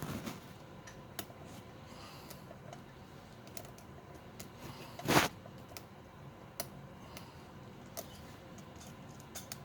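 Light, irregular clicks and scrapes of a lock pick working the serrated pins inside a pin-tumbler lock, with one louder knock about five seconds in.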